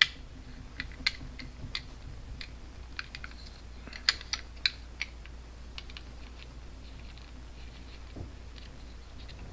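Irregular small clicks and taps of plastic RC-tank gearbox parts and small tools being handled while the gearbox is taken apart, a few sharper ones standing out, over a low steady hum.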